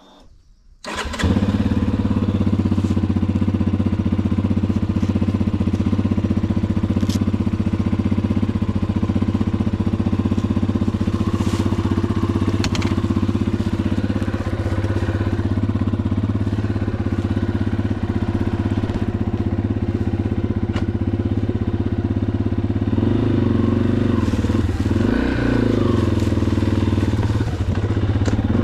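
Yamaha XT250 dual-sport motorcycle's single-cylinder engine running, the sound coming in abruptly about a second in and then holding steady. Its pitch wavers up and down for a few seconds near the end.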